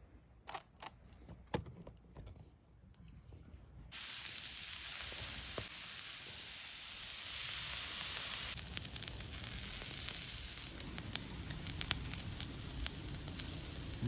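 Food sizzling on a hot iron griddle over a campfire, starting suddenly about four seconds in and staying steady. A few light taps come before it, and scattered light clicks run through the sizzle.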